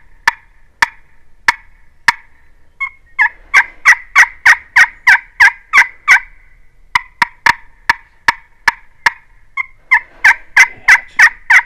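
Wingbone turkey call imitating hen yelps: a series of short, sharp yelps, each starting with a click. They begin as slow single yelps, then come in fast runs of about four a second, with a short pause between runs.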